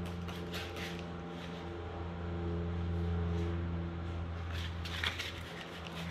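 Trigger spray bottle squirting water onto a plastic headlight lens in short hissing bursts, a few in the first second and a quick cluster around five seconds in. A steady low hum runs underneath.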